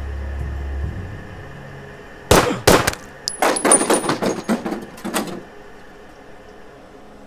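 Handgun fired repeatedly: two loud shots, then a quicker run of about ten more over the next three seconds before it stops. A low music drone fades out just before the shooting.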